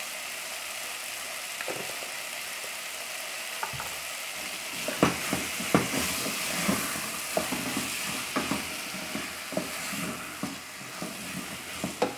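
Chopped maxixe sizzling in an aluminium pot with a steady hiss, while a wooden spoon stirs it; from about four seconds in, the spoon knocks and scrapes against the pot in quick, uneven strokes.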